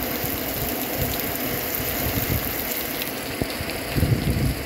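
Heavy hurricane rain falling steadily, with rumbling wind noise underneath that swells near the end.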